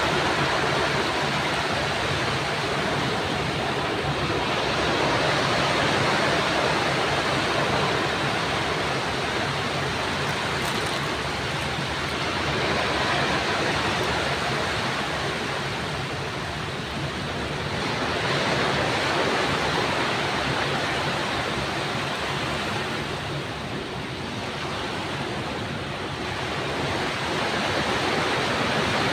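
Sea waves washing in a continuous rush that slowly swells and eases, softening briefly twice.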